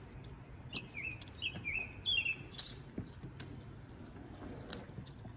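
A small songbird chirping a quick run of short, up-and-down notes from about a second in until nearly three seconds, with a few sharp clicks besides.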